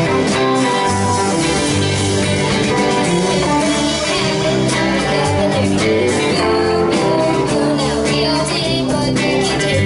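Live rock band playing: a young girl sings into a microphone over electric guitars, bass guitar and a drum kit.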